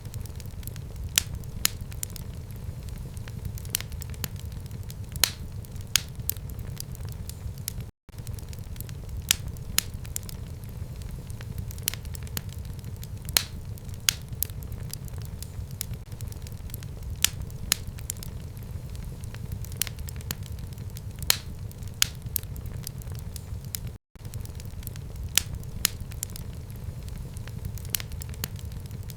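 Wood fire burning in a fireplace: a steady low rumble of flames with frequent, irregular sharp crackles and pops. The sound cuts out for an instant twice.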